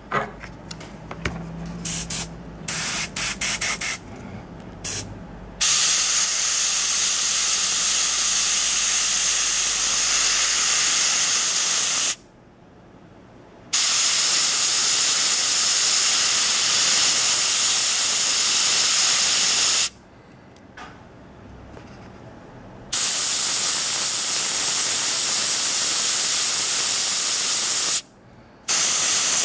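A 0.2 mm dual-action, gravity-fed airbrush spraying paint: a few short spurts in the first several seconds, then long steady hisses of several seconds each, broken by three short pauses.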